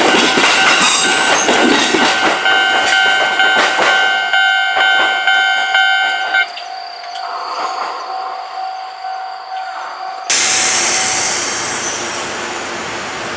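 Izuhakone Railway train passing a level crossing, its running noise mixed with the crossing's warning bell ringing about twice a second; the bell stops about six and a half seconds in and the train noise drops away. About ten seconds in, a sudden steady rush of noise begins.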